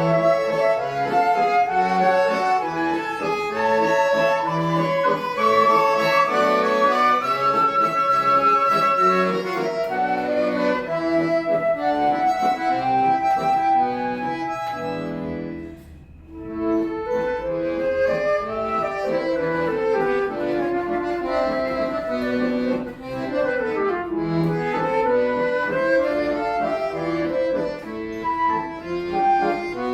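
Accordion playing a melodic piece in sustained notes, breaking off briefly about halfway through and then starting again.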